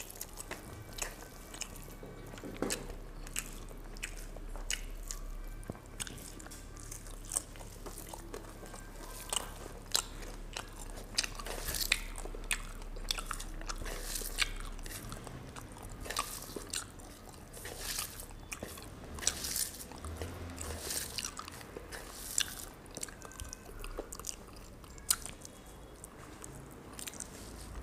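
A person chewing a mouthful of rice and cooked greens close to the microphone. It comes as a steady stream of wet smacks, clicks and crunches.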